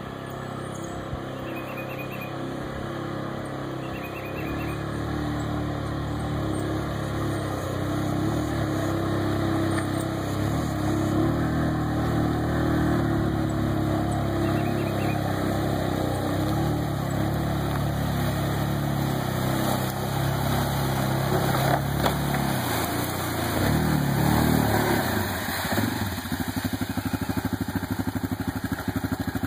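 Yamaha Grizzly 700 ATV's single-cylinder four-stroke engine running under load as the quad wades through deep flood water, growing louder as it comes closer, with water sloshing around it. Near the end the engine drops to a low, even putter as the quad climbs out onto gravel.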